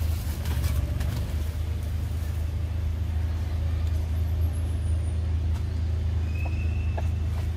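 A steady low rumble, a little thinner after about a second in, with a faint short high whistle about six and a half seconds in.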